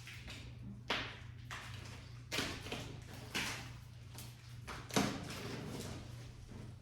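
Plastic wrapping of a compressed bed-in-a-box mattress being cut and pulled, giving four sharp rustling tears about a second apart over a low steady hum.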